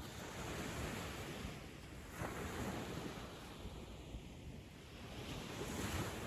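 Ocean surf on a sandy beach, the wash of the waves swelling and ebbing three times.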